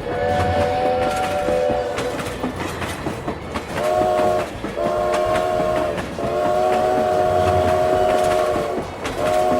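Train horn sounding a chord of several notes in five blasts, the longest nearly three seconds, over the clatter of wheels on rail joints.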